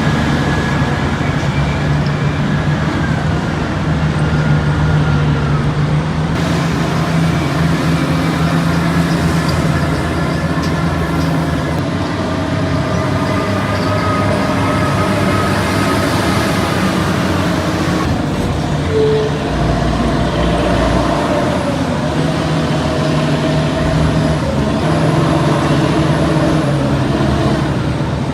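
Heavy machinery engines running steadily, with the engine note shifting in pitch. The sound changes abruptly twice, about six seconds in and again around eighteen seconds.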